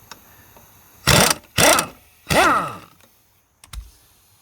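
Impact wrench run in three short bursts, the last one winding down in pitch as the trigger is let go, followed by a single light knock.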